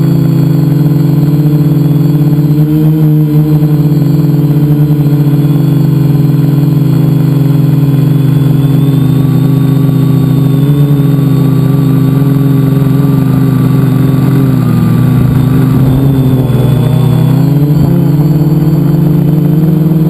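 Multicopter's electric motors and propellers humming loudly close to the onboard camera, the pitch wavering up and down as the throttle changes about three quarters of the way in.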